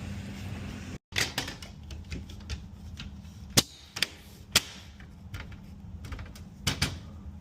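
Irregular sharp clicks and knocks of hard objects, a few of them louder strikes, over a steady low hum.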